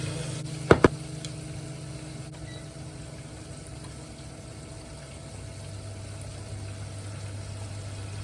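Steady low hum of a kitchen appliance running, with two sharp clicks close together a little under a second in.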